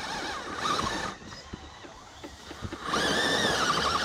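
Electric motor of a 1/10-scale RC rock crawler whining in bursts, its pitch wobbling up and down with the throttle. It drops out about a second in and picks up again near the end, with small crunches and clicks from the truck in the gap.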